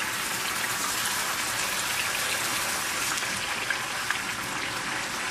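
Pieces of pork sizzling skin-side down in a wok of caramelized sugar, soy sauce and fish sauce: a steady frying hiss with small scattered crackles.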